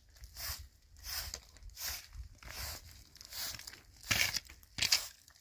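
Short hand broom sweeping a concrete floor: a run of brisk bristle strokes, about one or two a second, with the two loudest near the end.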